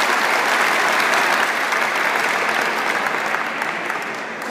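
An audience applauding, the clapping gradually dying down toward the end.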